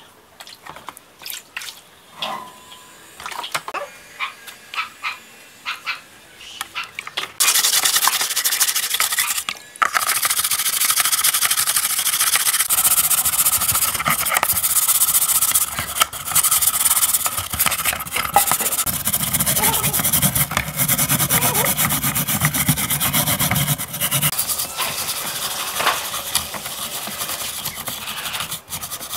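Stiff bristle scrub brush scrubbing rusty metal rifle parts in a basin of water. A few light knocks and splashes first, then steady brisk scrubbing from about a quarter of the way in.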